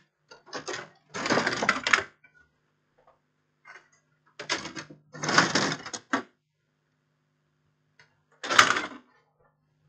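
Clattering and rattling of small parts in about five short bursts, the loudest near the middle, as someone rummages through a parts container for replacement SMD capacitors. A faint steady low hum lies under it.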